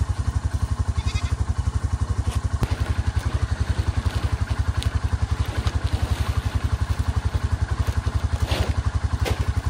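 A small engine running steadily, a low rapid throb of about nine beats a second that never changes, with a few light clicks and clatters near the end as feed is scooped from a sack.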